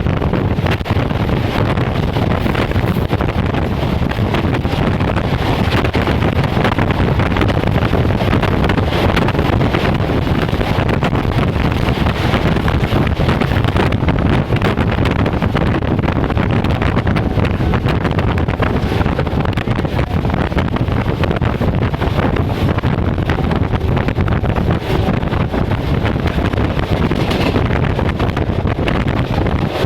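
Steady, loud rumble of a train in motion hauled by an ALCO WDM3A diesel-electric locomotive, with wind buffeting the microphone. There is no horn.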